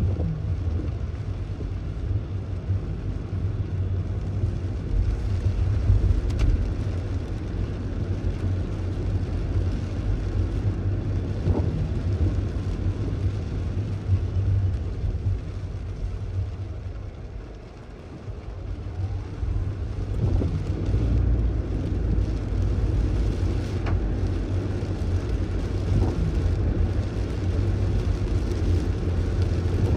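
A car driving on rain-wet streets, heard from inside the cabin: a steady low rumble of road and tyre noise with a hiss above it, dipping briefly a little past halfway as the car slows, then rising again.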